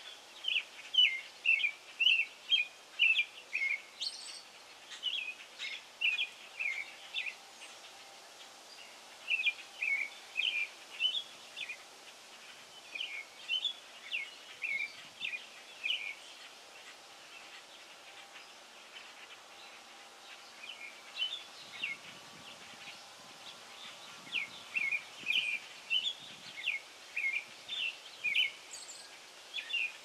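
American robin singing: bouts of short clear notes, several a second, broken by pauses of a few seconds between bouts.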